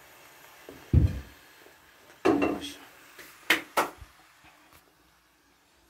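Wooden spoon knocking and scraping against an aluminium pot of thick polenta as it is stirred: a dull bump about a second in, another a little after two seconds, then two sharp knocks in quick succession, before it goes quiet.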